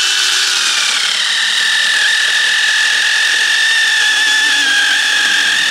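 Seyvum CS-BM11 6-inch cordless mini chainsaw running at full speed as its chain cuts through a small log. It is a steady, high electric-motor whine that drops a little in pitch about a second in, as the chain bites into the wood under load.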